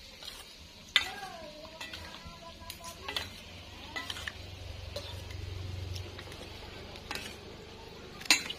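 A metal spoon and fork stirring and mixing saucy noodles and meatballs in a stainless-steel bowl: a wet stirring noise with a few sharp clinks of metal utensils against the bowl.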